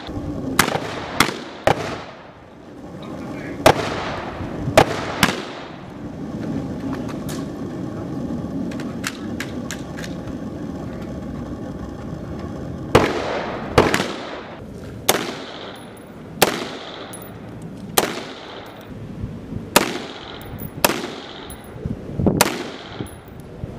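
Rifle shots fired one at a time on a live-fire range, well over a dozen at uneven intervals of about one to two seconds, each a sharp crack with a short echo. Fainter, more distant shots fill a lull in the middle.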